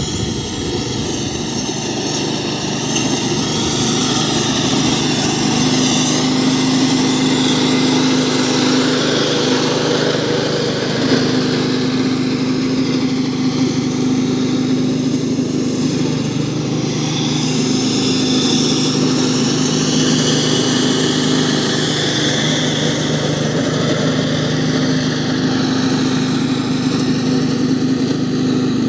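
MaxGreen engine-powered cylinder lawn mower running steadily as it is pushed across grass, its small petrol engine at a constant speed.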